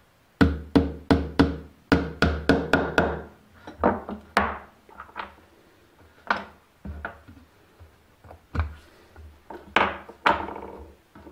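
Small hammer tapping a point through a packet of wood veneers on a wooden block to pierce the entry hole for the fretsaw blade: a quick run of about ten sharp, slightly ringing knocks in the first three seconds, then slower, scattered taps.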